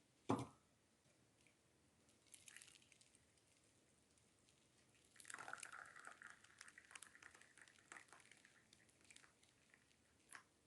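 Quiet kitchen handling: a sharp knock, then soft wet squishing and small clicks for a few seconds during food preparation, ending with one more light click.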